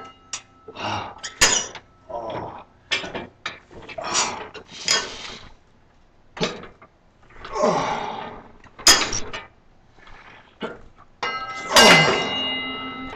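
A person lifting weights, exhaling hard and grunting with effort over and over, with a long strained groan near the end and a few sharp knocks.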